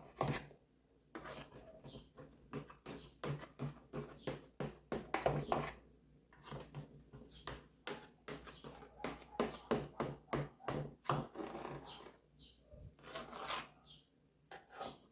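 A knife cutting a freshly baked corn cake in its pan: a run of irregular soft knocks and scrapes.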